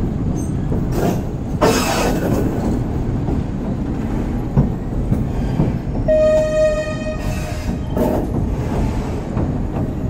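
Passenger train running over a steel trestle viaduct, heard from an open carriage window: a steady rumble and rattle of wheels and carriage. About six seconds in, the train's horn sounds one steady blast lasting just over a second.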